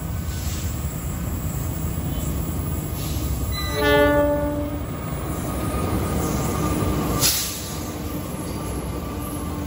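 Two KAI CC206 diesel-electric locomotives working a coal train in double heading, their engines rumbling steadily as they approach and pass close by. About four seconds in the horn sounds one blast of about a second, the loudest sound, and a sharp rush of noise follows briefly about seven seconds in as the locomotives go by.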